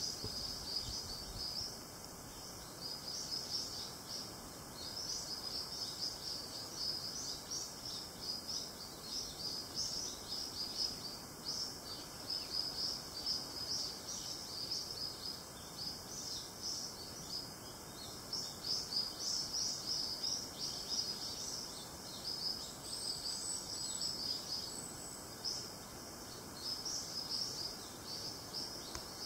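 Forest ambience: a continuous chorus of rapid, high-pitched chirping from wild insects or birds, pulsing unevenly, with a thin high whistle for a couple of seconds about three quarters of the way through.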